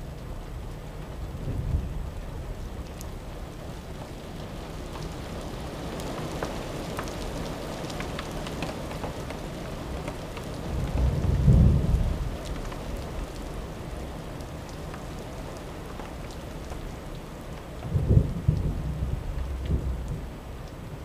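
Steady rain falling, with low rumbles of thunder: a short one about two seconds in, the loudest rolling rumble around the middle, and another rumble near the end.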